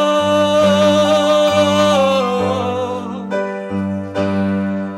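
Song with keyboard accompaniment: a voice holds one long note with vibrato that slides down about two seconds in, over sustained chords.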